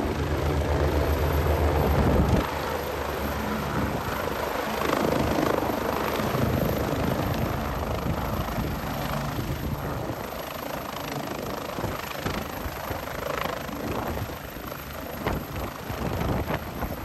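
AgustaWestland A109 twin-engine helicopter descending and hovering low to land, its rotor and turbines running steadily.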